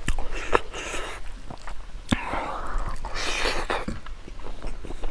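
Close-miked eating sounds: wet clicks and smacks of chewing and of fingers mixing rice and pork, with two longer breathy hisses in the middle.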